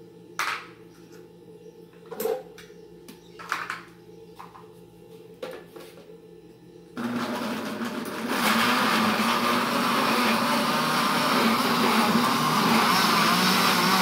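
An electric countertop blender starts about halfway through and runs steadily at full speed, chopping carrot pieces with eggs and oil into a cake batter. Before it starts there are a few short knocks.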